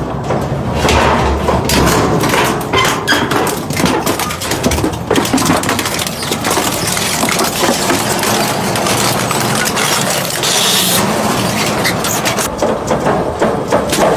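Industrial shredder grinding and crushing material, a dense clattering of cracks and knocks over the machine's running noise.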